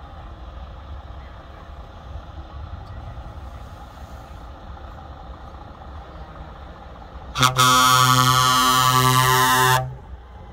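Truck air horn sounding one long, deep blast of about two and a half seconds, starting about seven seconds in, over a low steady rumble.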